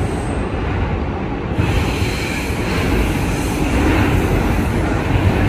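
A 2023 Kawasaki R211A subway train running at express speed between stations: a steady, loud rumble of wheels on rail, growing hissier about a second and a half in.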